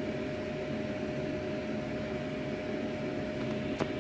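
Steady background hum and hiss with a thin steady tone running through it, and one faint click near the end.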